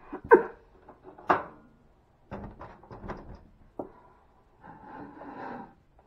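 Knocks and clatter of kitchen items being handled and set down on a counter: two sharp knocks in the first second and a half, a run of lighter clatter in the middle, then a brief rustle of handling near the end.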